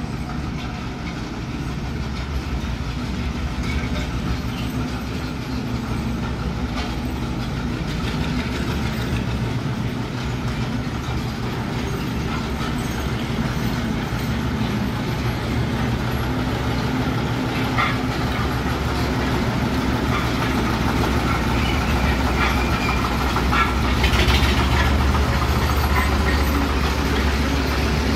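Old tractors' engines running steadily as the tractors drive past, with a low, rhythmic rumble that grows gradually louder toward the end as another tractor approaches.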